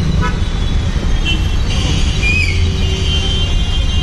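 Dense, slow road traffic of scooters, motorbikes and a city bus: engines running as a steady low rumble, with higher steady tones coming in about a second in and lasting a second or so.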